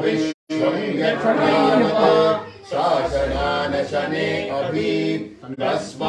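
Male voices chanting mantras together in drawn-out phrases, with short pauses between them. The sound cuts out completely for a split second near the start.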